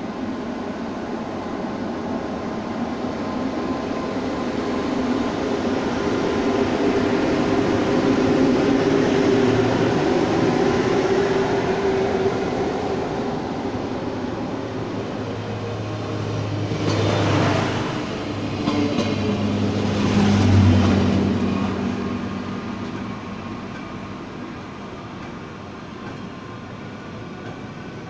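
ÖBB class 1144 electric locomotive hauling a freight train of empty double-deck car-carrier wagons past at speed: steady rumble and rail noise with a low humming tone, building to its loudest about a third of the way in. Two louder bursts of wheel clatter come about two-thirds of the way in, and then the noise fades as the train goes by.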